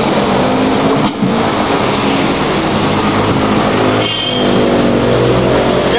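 Loud, steady motor traffic noise with a vehicle engine running.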